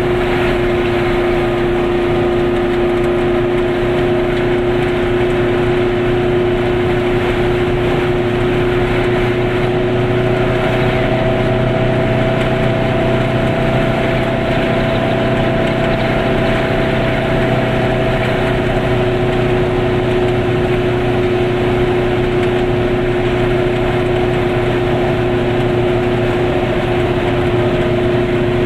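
Goggomobil's small air-cooled two-stroke twin engine running steadily at cruising speed, heard from inside the cabin together with tyre and road noise.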